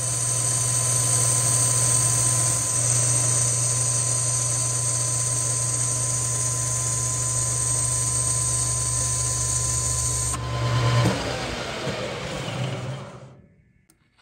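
13x40 manual metal lathe turning a 304 stainless steel bar with an insert tool: steady motor and spindle hum with the hiss of the cut. The cutting hiss stops about ten seconds in, and the machine's sound then dies away over a second or so near the end.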